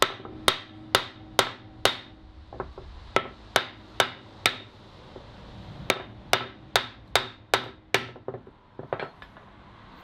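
Wooden mallet tapping a handmade steel door bolt to drive it into its tight-fitting recess in an oak door: sharp knocks about two a second, in two runs with a short pause about five seconds in.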